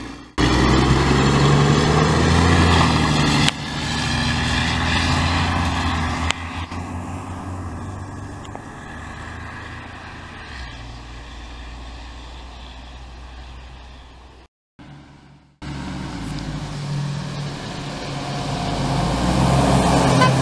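Garbage truck engines: one truck runs loudly, then pulls away, fading slowly into the distance. After a short break, another truck approaches, its engine growing steadily louder.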